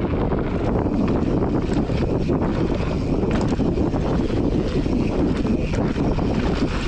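Wind rushing over the microphone and a mountain bike's tyres rolling fast over a dirt trail, a steady rumbling noise, with scattered small clicks and rattles from the bike.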